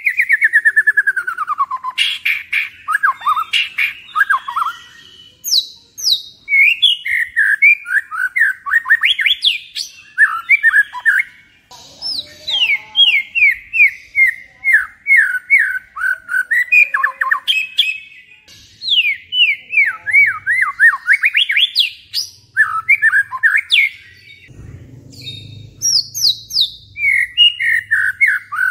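White-rumped shama (murai batu) singing loudly: phrases of fast, repeated whistled notes that slide down and up in pitch, broken by short pauses.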